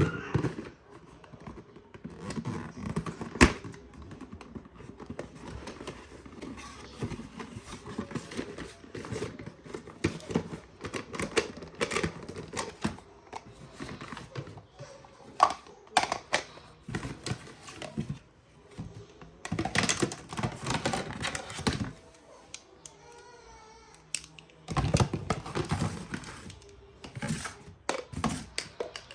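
Cardboard and plastic packaging being handled and opened by hand: irregular rustling, crinkling and sharp clicks and knocks, with a few louder bursts of handling.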